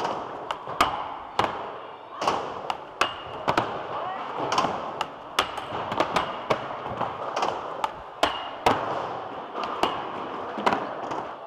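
Skateboards rolling on a wooden skatepark floor, with a string of sharp pops and slaps from boards being popped and landed.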